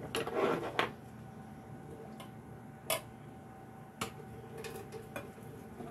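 Metal scissor tongs picked up from a stone countertop with a short clatter, then a handful of sharp single clicks as the tongs knock against the metal pot while holding boiled corn cobs in it as it drains.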